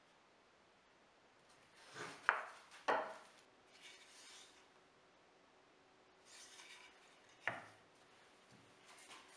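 Plywood parts being handled on a plywood board: a few sharp wooden knocks as pieces are set down, two close together early and one more later, with short scraping slides between them.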